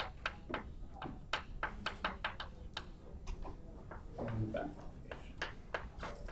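Chalk tapping and scraping on a blackboard as words are written: a quick, irregular run of sharp clicks as each stroke lands. There is a short, low hum about four seconds in.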